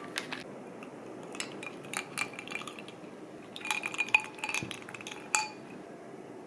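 Kitchen utensils clinking against dishes: scattered light clinks that ring briefly, in two clusters, with the sharpest one near the end.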